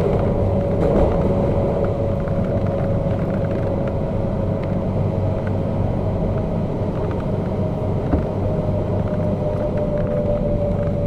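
MTR K-Train electric multiple unit running through the undersea tunnel, heard on board: a steady rumble of wheels on rail, with a constant motor whine that sinks slightly near the end and a few faint rail clicks.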